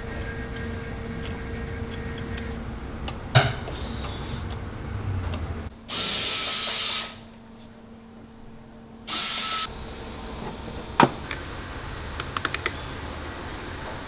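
A power tool run in two short bursts, the first a little over a second long and the second about half a second, amid sharp clicks and knocks of parts being handled.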